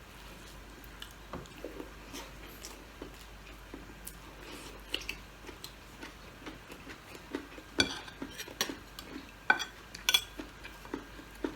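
Eating at a table: small scattered clicks and scrapes of utensils and dishes, with a few sharper clinks near the 8- and 10-second marks.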